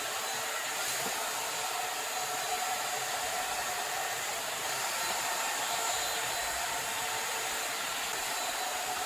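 Agaro volumizer hot-air brush hair dryer running steadily while blow-drying hair: an even rush of air with a faint steady whine in it.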